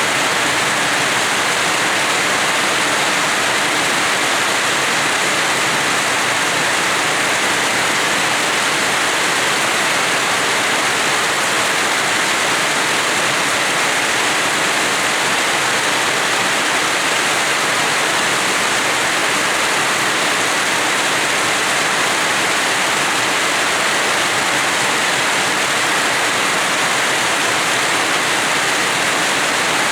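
Rain falling steadily: an even, unbroken hiss with no let-up or distinct drops standing out.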